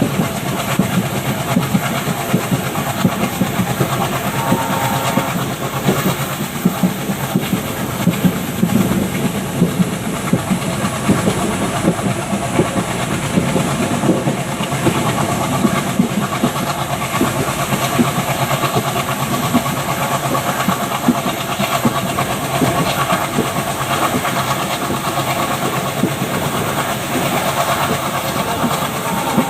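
Train running at speed, heard from inside a passenger coach close behind an ALCO WDG3A diesel locomotive: a steady clatter of wheels over the track, with the locomotive's 16-cylinder ALCO 251 diesel engine running under it.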